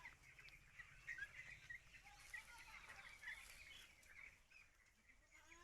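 A flock of young broiler chicks peeping faintly, many short high cheeps overlapping without pause.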